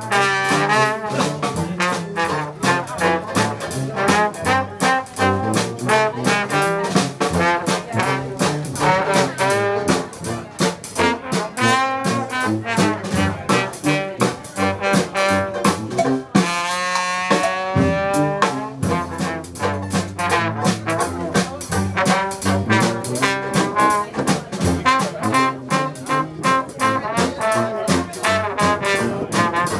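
Dixieland jazz band playing, with trombone and trumpet over a steady beat. About two-thirds of the way through the beat drops out briefly while a horn carries a wavering held line, then the full band comes back in.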